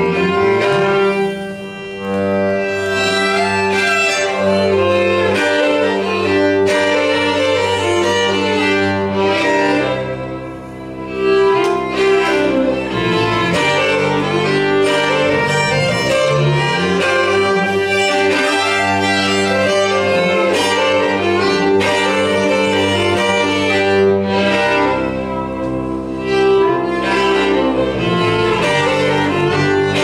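Two fiddles and a bowed upright bass playing an instrumental passage together, the fiddles carrying the melody over long sustained bass notes. The music briefly drops quieter about ten seconds in.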